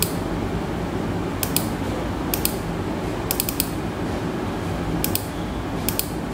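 Groups of two or three quick plastic clicks from a computer mouse, about once a second, over a steady low hum.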